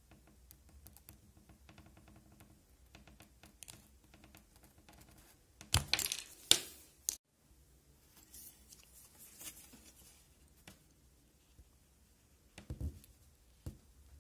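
Small clicks and crackles of hard plastic being worked against a hot cutter blade fitted to an electric soldering iron, with a louder cluster of sharp clacks about six seconds in that stops suddenly, and a few more clicks near the end.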